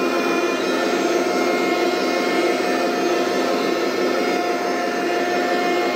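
1/16 Heng Long Leopard 2A6 RC tank running with its turret turning: a steady whirring drone from the model's engine sound together with the whine of the turret's electric motor and gears.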